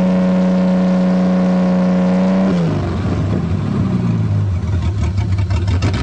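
1984 Toyota Cressida engine running at raised revs on gas left in the tank since 2000, just woken after years abandoned. About two and a half seconds in the revs fall off to a rough, uneven idle, then pick up again at the very end, with the poor throttle response the owner complains of.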